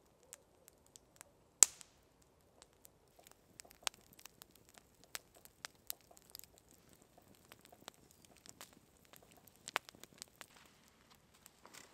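Wood campfire crackling, with irregular sharp pops and ticks and one loud pop about a second and a half in.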